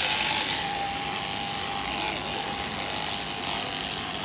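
Electric sheep-shearing handpiece running with a steady high hum and rattle as it clips fleece from a sheep.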